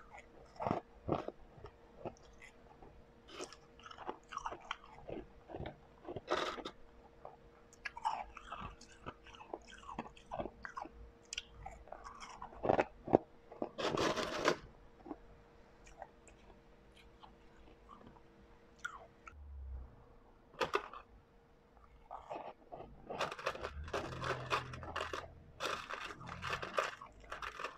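Refrozen blended ice crunching between teeth as it is bitten and chewed, close to the microphone: irregular crunches, with a dense burst about halfway and a longer run of steady chewing near the end.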